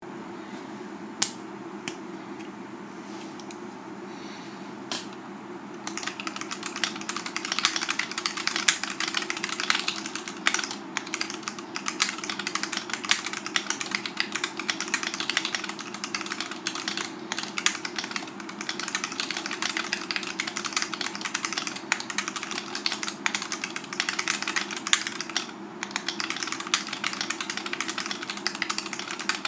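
Typing on a TOFU65 custom mechanical keyboard with Tealios V2 linear switches: a few single keystrokes at first, then fast continuous typing from about six seconds in, with a brief pause near the end. The switches and stabilizers are unlubricated and unfilmed, and the board has no sound dampener.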